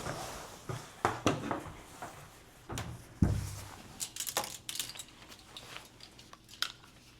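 Indoor handling noises: scattered knocks and clicks, with one heavier thump about three seconds in and a run of sharper clicks just after.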